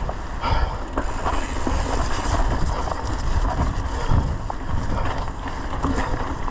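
Mountain bike riding fast down a dirt forest trail: tyres rumbling over dirt and roots with scattered clicks and knocks from the bike, and wind buffeting the handlebar-mounted microphone.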